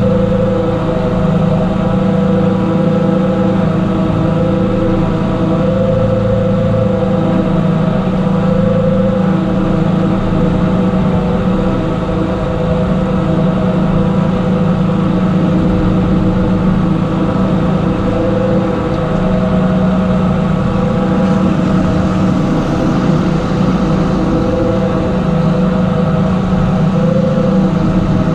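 Tractor engine running steadily to drive a vertical tub TMR mixer wagon as it mixes silage and blend, with one tone in the machinery swelling every few seconds.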